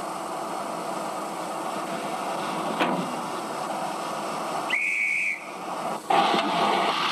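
Steam hissing steadily from a 15-inch gauge miniature steam locomotive, with a short, high single-note whistle blast about five seconds in, followed by a louder hiss.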